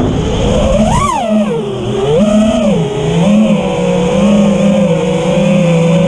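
FPV quadcopter's motors whining, the pitch climbing sharply about a second in, falling, rising again a little past two seconds, then holding fairly steady with small wavers as the throttle changes.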